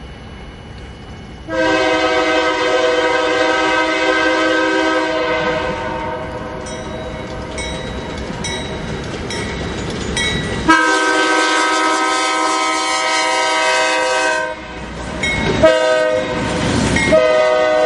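A BNSF diesel locomotive's multi-note air horn sounds several long blasts, then a short one and another long one, the pattern of a grade-crossing warning. Underneath, freight cars rumble and clack over the rails.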